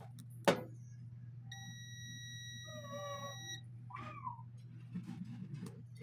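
A sharp click about half a second in, then a multimeter's continuity beeper sounding one steady high beep for about two seconds as the probes bridge the armature's commutator bars. A cat meows faintly during and after the beep, over a steady low hum.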